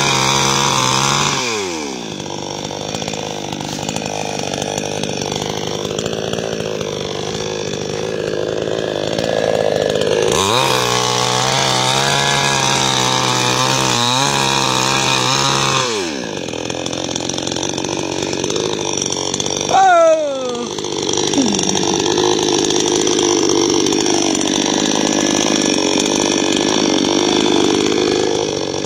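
Small chainsaw cutting through red gram (pigeon pea) stalks at ground level to harvest them. The engine runs at high revs, falls back about a second and a half in, revs up again about ten seconds in, drops near sixteen seconds and then runs steadily. A brief loud squeal falling in pitch comes about twenty seconds in.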